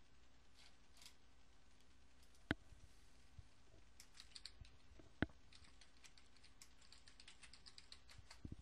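Faint keystrokes on a computer keyboard, with two louder sharp clicks about two and a half and five seconds in.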